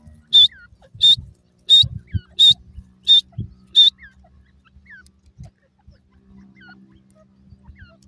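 Grey francolin calling: a loud, shrill note repeated six times, about every 0.7 s, stopping about four seconds in. Fainter down-slurred whistles sound now and then.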